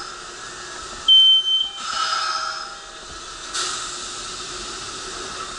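A short, loud, high electronic beep about a second in, over the hiss of a train; the hiss swells again a little past halfway.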